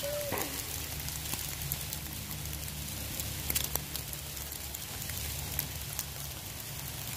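Rain falling: a steady hiss with scattered sharp ticks of drops, over a low steady rumble.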